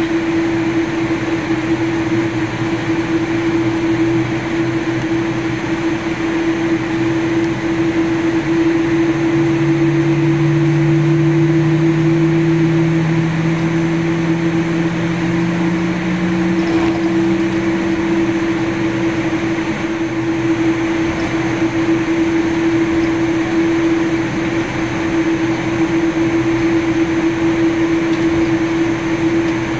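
Jet airliner cabin noise while taxiing: a steady rushing hum with a constant droning tone. About a third of the way in, a second, lower tone rises slowly in pitch for about ten seconds, then fades.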